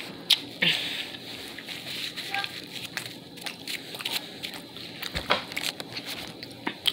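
Close-up eating sounds: a person chewing a burger and fries, with wet mouth noises and scattered small clicks and crackles.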